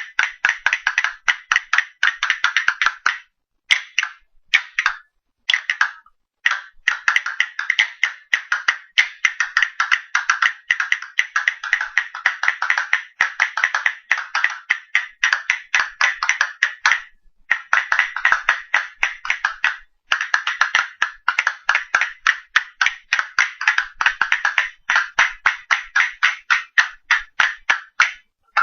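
Castanets played in fast runs of sharp wooden clicks, several strokes a second, working through different stroke patterns, with a few brief breaks in the playing early on and around the middle.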